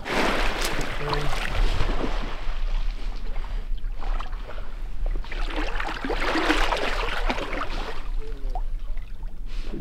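Water splashing and churning in two long spells as a retrieving dog swims and thrashes after a duck.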